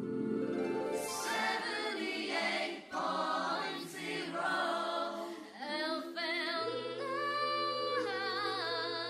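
Music with a singing voice carrying a melody with vibrato over held, sustained chords.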